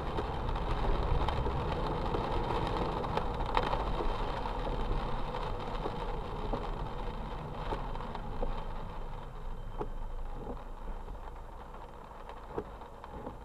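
Steady car engine and road noise heard from inside the car's cabin on a wet road, with a few faint clicks, slowly getting quieter toward the end.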